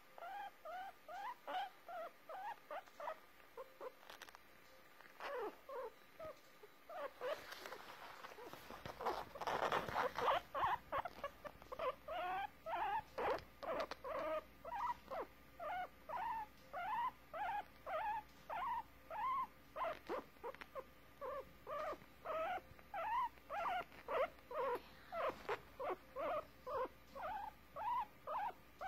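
A guinea pig complaining with a long run of short, pitched squeaks, about two a second, each sliding in pitch. A burst of rustling is loudest about a third of the way through.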